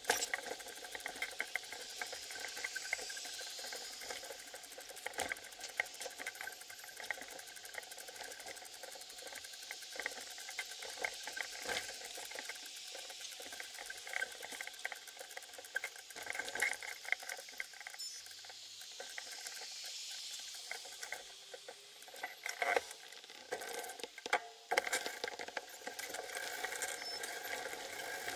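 A bicycle rolling on asphalt, heard through its bike-mounted camera: steady road and wind noise with frequent small rattles and knocks as the bike and camera mount jolt over the pavement.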